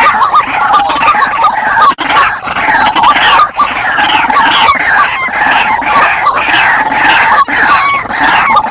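White-breasted waterhens calling loudly and continuously, several birds' harsh repeated notes overlapping into a noisy chorus.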